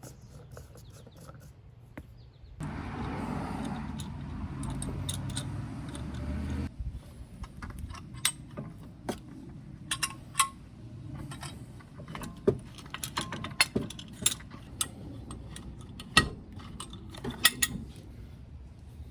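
Metal tools and brake parts clinking and tapping as they are handled, a run of sharp separate clinks through the second half. Before that, a steady mechanical noise lasts about four seconds and stops abruptly.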